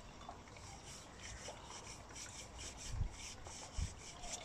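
A paintbrush stroking thinned shrinking dope onto polyester dress-lining fabric stretched over a model aircraft rudder: faint, repeated scratchy brush strokes, several a second. Two low thumps come about three seconds in.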